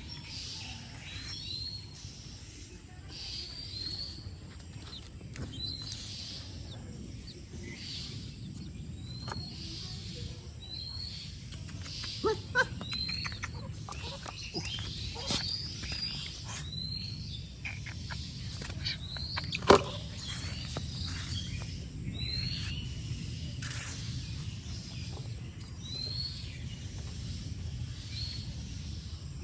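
A small bird chirping over and over, short high hooked notes every second or so, over a steady low outdoor rumble. A few sharp clicks or knocks come in around the middle, the loudest about two-thirds of the way through.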